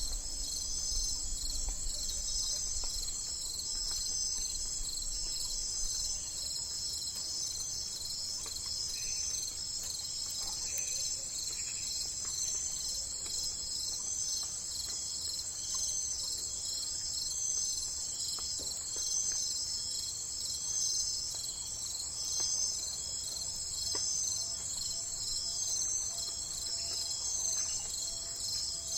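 Dense chorus of insects trilling steadily: a high, evenly pulsing shimmer that does not let up.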